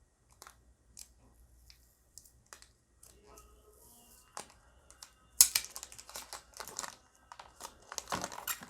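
Headphone packaging opened and handled by hand: scattered small clicks and taps, then from about five and a half seconds in a dense run of crinkling and rustling.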